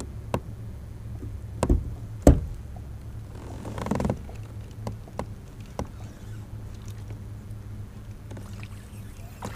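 Handling noises in a fishing kayak: a few sharp knocks of rod and gear against the hull, the loudest about two seconds in, and a short rustle about four seconds in, over a steady low rumble.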